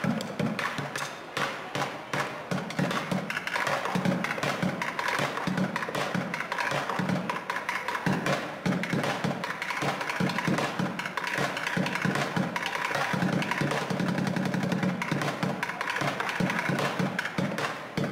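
Upturned plastic buckets played as drums with wooden drumsticks: a fast, unbroken run of low bucket hits mixed with sharp stick clicks on the rims and sides.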